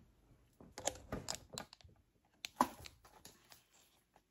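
A run of light clicks and taps from small objects being handled and rummaged through, with one sharper knock about two and a half seconds in.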